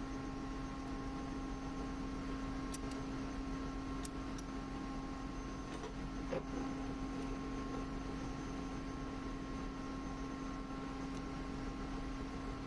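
Steady machinery hum made of several fixed tones, with a few faint metal clicks and one small knock about six seconds in as the lathe chuck is handled.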